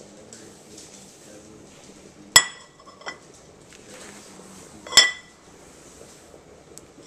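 A plate set down and moved on a stone countertop: two sharp clinks with a brief ring, about two and a half seconds apart, with light handling rustle between them.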